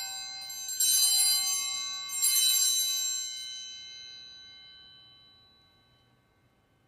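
Altar bells rung at the elevation of the host after the consecration: the ringing of a strike just before carries on, two more strikes follow about one and two seconds in, and the bright ringing fades away over the next few seconds.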